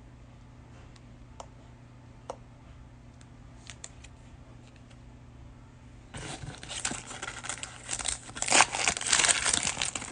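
A few faint clicks, then about six seconds in a trading-card cello pack's plastic wrapper is torn open and crinkled loudly for about four seconds.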